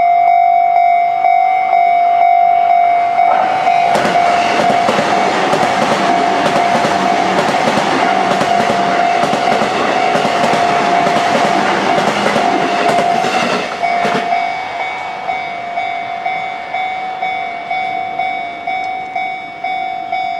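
Japanese level-crossing warning bell dinging in a steady repeating rhythm while a JR East E233-series electric commuter train runs over the crossing. The train rushes past from about three seconds in to about fourteen seconds, its wheels clacking over the rail joints. After it has gone, the bell keeps ringing on its own.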